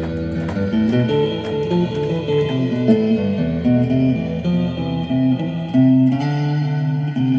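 Guitar played in an improvised jam: single notes changing several times a second over lower held notes.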